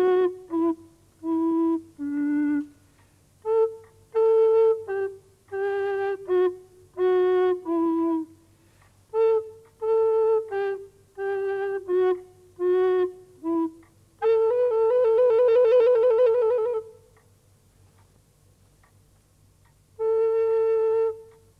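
Solo woodwind, a recorder-like pipe, playing a slow tune of short separate notes, then one long warbling note about two-thirds through, a pause of a few seconds, and a held note at the end.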